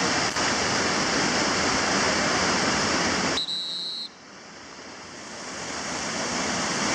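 Whitewater of a river rapid rushing and churning in a steady dense hiss. About halfway through it drops away abruptly and a short high steady tone sounds for under a second. The water noise then builds back up.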